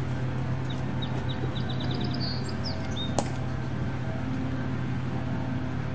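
A small bird chirps a quick run of short, high, falling notes about one to three seconds in, over a steady low hum. A single sharp click comes about three seconds in.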